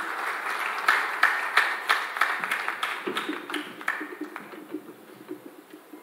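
Audience applauding, the dense clapping thinning out and fading over the last couple of seconds.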